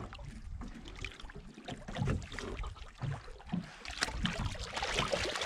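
Water slapping and sloshing against the side of a small fishing boat, with scattered knocks and clicks.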